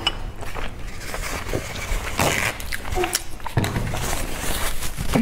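Close-miked eating sounds: chewing a boiled dumpling with wet mouth sounds and many small clicks, and a short papery rustle of a tissue near the middle.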